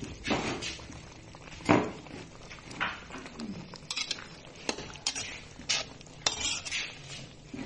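Metal spatula scraping and clinking against a metal pan in irregular strokes, stirring a wet stir-fry of bee larvae and sour bamboo shoots. The sharpest knock comes about a second and a half in.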